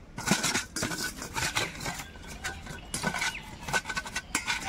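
Peeled boiled eggs being tossed and rubbed by hand with salt and turmeric in a bowl: irregular knocks, clicks and rubbing.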